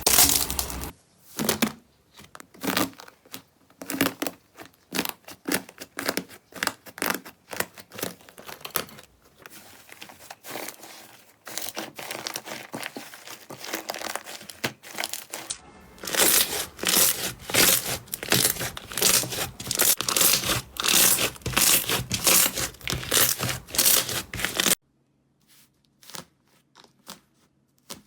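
Slime being squeezed and pressed by hand, giving dense, irregular crackling and popping. The texture changes abruptly about a second in and again about 15 seconds in, louder in the later stretch, then goes almost quiet near the end.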